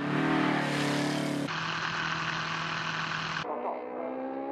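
Superbike racing engines heard across quick edits: a steady high engine note, a cut to a different steady note about a second and a half in, then about three and a half seconds in a Kawasaki ZX-10R's four-cylinder engine accelerating, its pitch rising.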